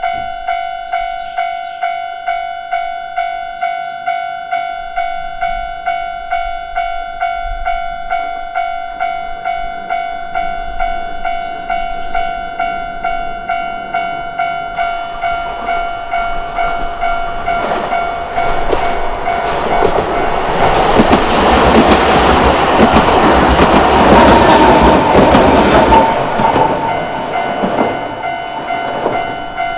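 Japanese level-crossing warning bell ringing in a steady, even rhythm of about one and a half strikes a second. Partway through, a narrow-gauge electric train with nose-suspended traction motors approaches and rumbles past over the crossing, loudest in the last third and fading away near the end while the bell keeps ringing.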